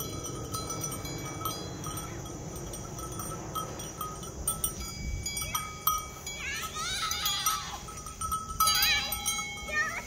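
A sheep's bell clinking and ringing, with two wavering sheep bleats of about a second each in the second half.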